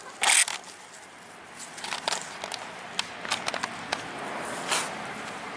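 Hands working loose the transit bracket on a riding mower: a short loud scrape just after the start, then scattered clicks and knocks of parts being handled.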